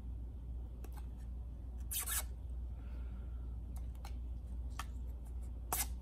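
Thin protective plastic film being peeled off a clear acrylic panel: two short crackling rips, one about two seconds in and one near the end, with light clicks of fingers and nails on the acrylic. A steady low hum runs underneath.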